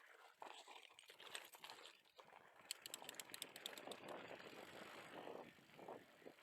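Bicycle rolling over rough ground with light rattles, and a quick run of freewheel hub clicks about three seconds in.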